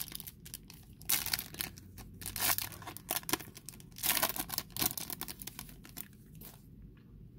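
Foil wrapper of a baseball card pack being torn and peeled open, crinkling in several loud bursts that stop about six and a half seconds in.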